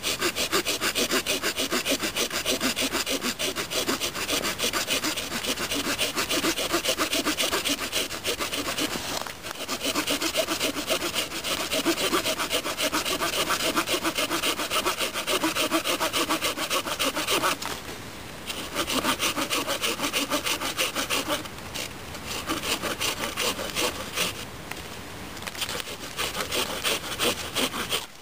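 Small pocket-knife saw blade of a Victorinox Trailmaster cutting through a stick of wood in rapid back-and-forth strokes. The sawing stops briefly a few times, about nine, eighteen, twenty-two and twenty-four seconds in.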